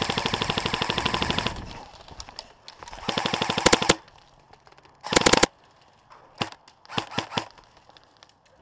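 Airsoft electric guns firing on full-auto: a long rapid burst in the first second and a half, another burst about three seconds in, and a short, loud burst about five seconds in. A few single sharp cracks follow.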